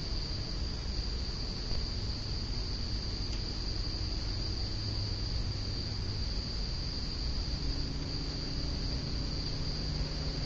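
A continuous high-pitched trill of crickets over the steady low hum of a running SMC Laguna ceiling fan.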